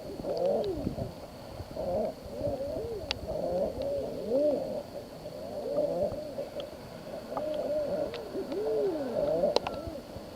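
A group of common eiders calling: overlapping soft, dove-like cooing calls, each rising and then falling in pitch, the crooning courtship call of the drakes. A couple of sharp clicks cut through, about three seconds in and near the end.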